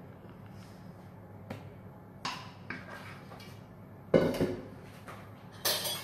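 A stainless steel mixing bowl and spatula knocking and clattering on the worktop: a few separate knocks, the loudest about four seconds in, and a brighter clink near the end.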